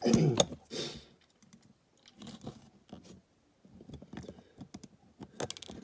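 Small clicks, crunches and scrapes as a tool pushes a plastic rear light lens out of a Matchbox Super Kings Jaguar diecast model's body.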